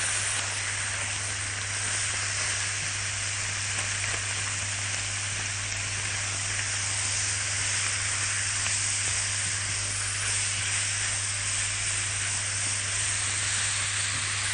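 Small-diced liver, onion and spices sizzling steadily in a very hot ghee-greased wok while being stirred, a fast high-heat sauté.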